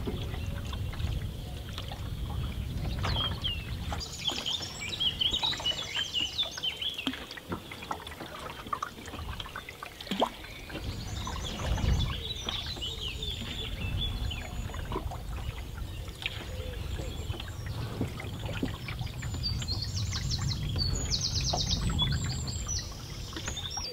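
Canoe paddle strokes in calm river water, trickling and dripping with each stroke. Birds sing in bursts of chirps and trills several seconds in and again near the end.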